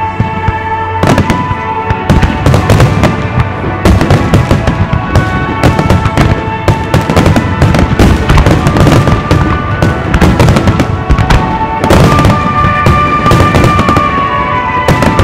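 Fireworks shells bursting in rapid, overlapping bangs that start about a second in and keep coming thick and fast, over music with held notes.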